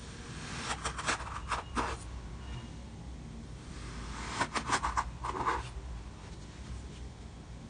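Kinetic sand being cut with a blade: two bouts of short crisp scraping and crunching strokes, the first a little under a second in and the second about halfway through.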